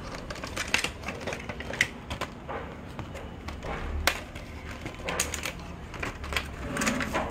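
Plastic blister packaging and cardboard of a tubeless tyre repair kit crinkling and clicking as it is handled and opened, with the paper instruction sheet rustling. The sounds are short, irregular crackles and clicks.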